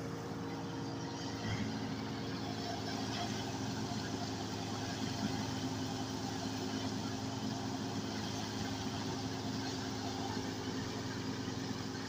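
Tractor-driven wheat thresher running steadily while threshing wheat, powered by a Massey Ferguson 240 tractor's diesel engine, with an even engine drone under the threshing drum's rushing noise.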